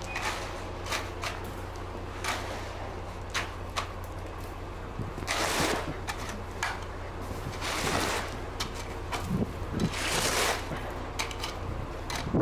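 Concrete work beside a running engine: a steady low hum with scattered knocks and clatters, and three louder scraping, rushing noises of a second or two each, about five, eight and ten seconds in.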